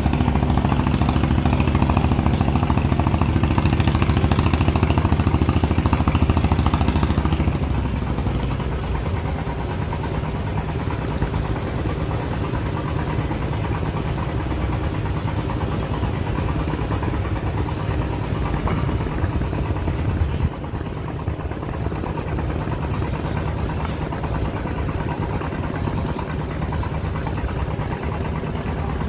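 A motorboat's engine running steadily. It is louder for the first seven seconds or so, then eases to a lower, even running sound.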